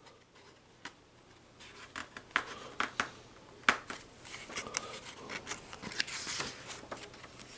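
Pages of a picture book being handled and turned: paper rustling with many sharp little crackles. It starts about a second and a half in.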